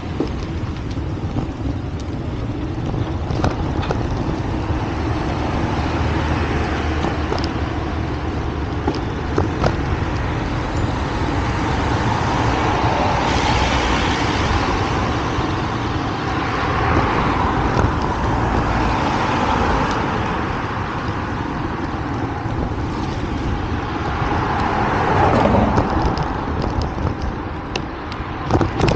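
Road traffic: a steady low rumble with several cars passing one after another, each rising and falling away, the last and loudest about three-quarters of the way through.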